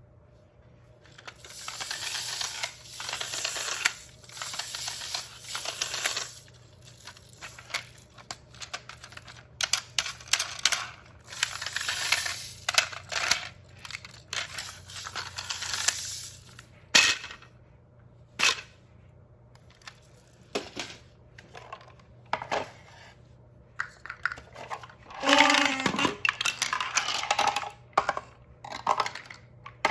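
Hard pieces of a shape sorter toy rattling, sliding and clacking as they are dropped through it, with many sharp clicks and stretches of continuous rattling. Late on, a short falling tonal sound effect.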